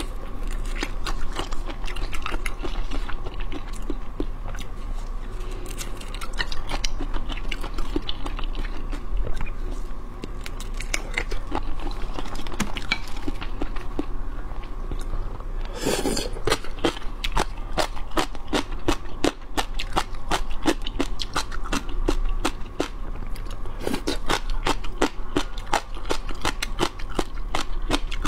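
Close-miked eating: wet chewing and crunching with many small mouth clicks as peeled, chilli-marinated shrimp and crunchy gong cai stems are chewed. One louder, longer sound stands out about sixteen seconds in.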